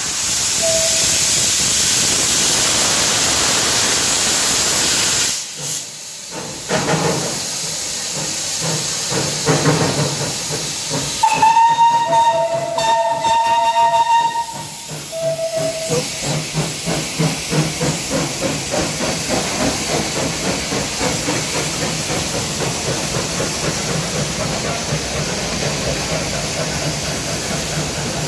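Steam locomotives of the Lancashire and Yorkshire Railway. First a loud, steady hiss of steam from the cylinder drain cocks. About halfway through, a steam whistle blows twice, the second blast longer with two notes together, and a short lower note follows. Then a quick, even rhythmic beat as a locomotive works.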